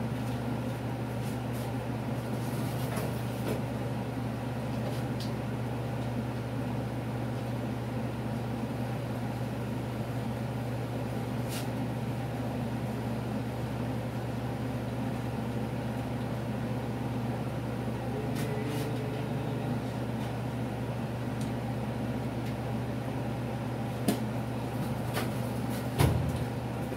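Steady low electric hum and airflow of a running box fan, with a few faint scattered clicks and a sharper knock near the end.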